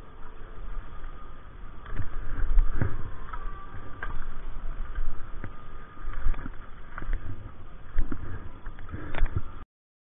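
Skis scraping and sliding over packed snow, heard through a budget action camera's microphone. A low rumble runs underneath, with scattered knocks throughout. The sound cuts out suddenly near the end.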